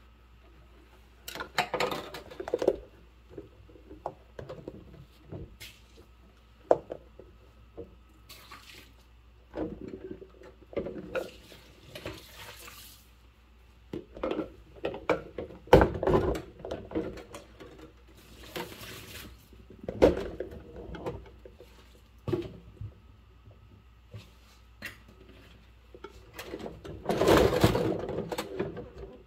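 Hand-washing dishes in a sink of soapy water: plastic cups and bowls and a knife knocking and clinking against each other and the sink, with water sloshing and splashing in short spells. The longest and loudest spell of splashing comes near the end.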